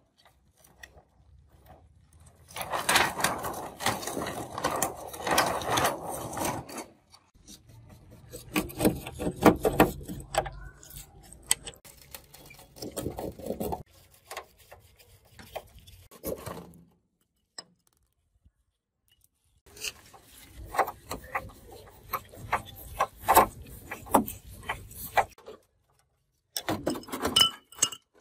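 Hands taking apart a large LCD TV. The thin plastic backlight reflector sheet rubs and crinkles as it is peeled away, then a screwdriver scrapes and clicks on the screws of the metal stand leg. The sounds come in separate bursts, with a short pause past the middle.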